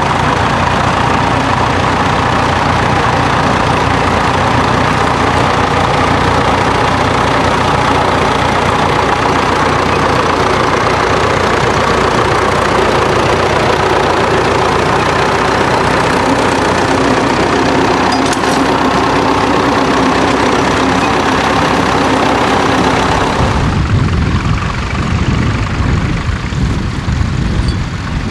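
Tractor engine running steadily and loudly. Near the end it gives way to a lower, uneven rumble.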